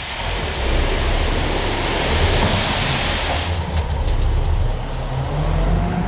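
Heavy diesel equipment running under load with a steady rumble and a broad hiss that eases about three and a half seconds in, followed by a short run of metallic clanks and rattles.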